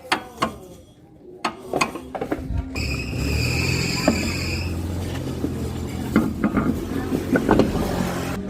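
A car running with a steady low rumble, joined about three seconds in by a high whine that lasts about two seconds, with scattered knocks and clicks.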